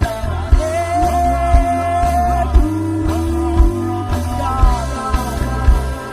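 Live rock band playing: a drum kit with strong low beats about once a second, bass, electric guitar and singing with long held notes.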